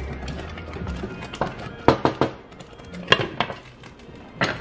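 Thick semolina upma sputtering in a pan as a wooden spatula stirs it, then a glass lid set onto the pan with a few sharp clinks and knocks, the loudest about two and three seconds in.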